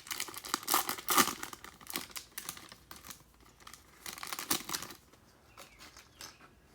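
Plastic wrapper of a trading-card pack being crinkled and torn open. It is busy for about five seconds, then drops to a few faint rustles.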